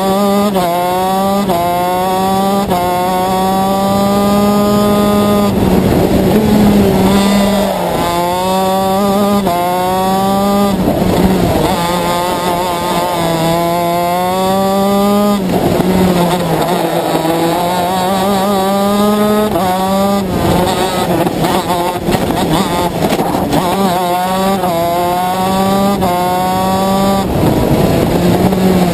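125cc two-stroke shifter kart engine at full race pace, heard onboard: the engine note climbs in quick steps as it is shifted up through the gears, then drops away under braking for the corners, several times over.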